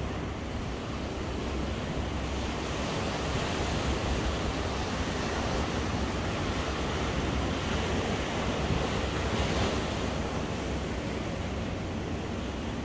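Surf breaking and washing onto the shore, with wind buffeting the microphone in a low rumble; the wash swells about four seconds in and again near ten seconds.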